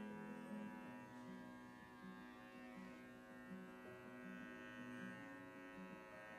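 Quiet background music: a melody of short, stepping notes over a steady drone.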